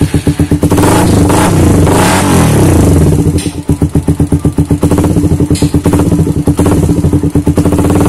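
Suzuki Satria FU's single-cylinder four-stroke engine running loud through a Kawahara racing exhaust. It is blipped up and back down about a second in, then settles into a fast, pulsing idle beat.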